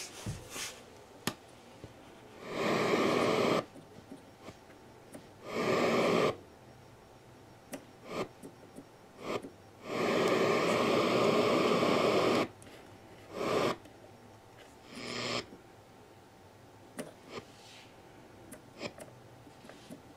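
Jensen CS-1100 car radio giving bursts of static hiss through its speakers as the FM band is switched and tuned, the longest about two seconds, with small button clicks between them. The FM section picks up no stations.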